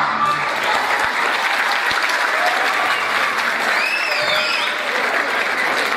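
Large audience in a hall applauding steadily, with a few voices calling out over the clapping.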